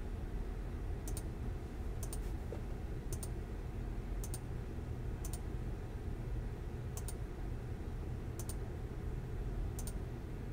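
Computer mouse button clicked repeatedly, about once a second, some clicks doubled, over steady low background noise.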